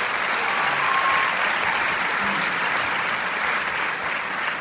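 Audience applauding, a dense steady clatter of many hands that eases a little near the end, with a brief faint tone about a second in.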